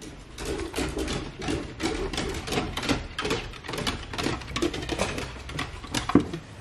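Two miniature dachshunds' paws and claws on bare wooden stair treads as they come down, a quick irregular run of knocks and clicks, about three or four a second. The loudest knock comes near the end.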